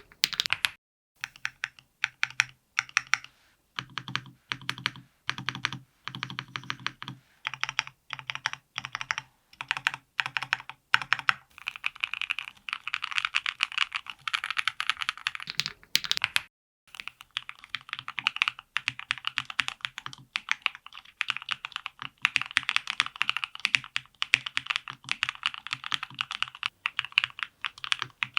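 Dry Studio Black Diamond75 mechanical keyboard (FR4 plate, full foam, DR Rapid ICE linear switches) being played key by key. For the first dozen seconds the stabilized long keys such as the spacebar are pressed in short runs with a deeper clack. After that it becomes steady, fast typing.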